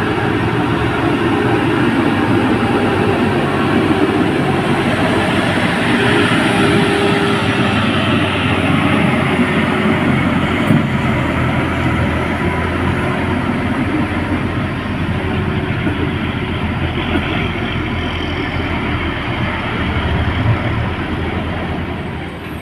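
Heavy truck diesel engine running under load at low speed as a fuel tanker takes a steep hairpin bend: a loud, steady drone.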